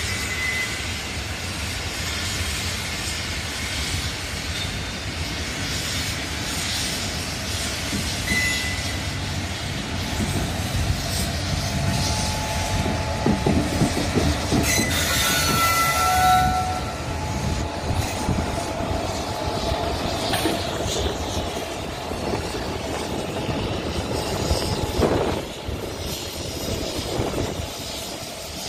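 Single WAP-4 electric locomotive running past on the track with no coaches: a steady rumble builds as it approaches, and its wheels click over the rail joints as it goes by about halfway through. Brief high-pitched tones sound as it passes, then the rumble fades as it moves away.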